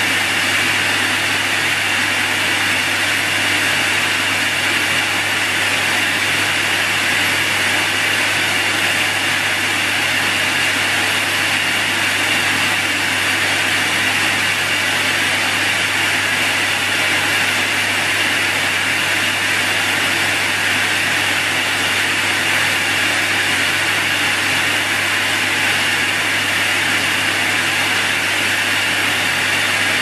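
Numatic Henry canister vacuum cleaner running continuously, its motor giving a steady rushing hiss over a low hum that never changes in pitch or level.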